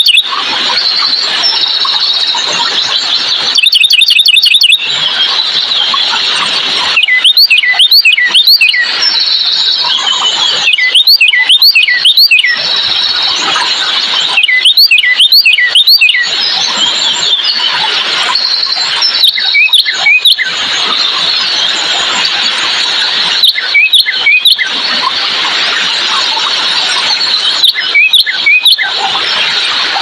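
A bird calling in short bursts of sharp, high notes that sweep up and down, a burst every three to four seconds, over a steady high hiss.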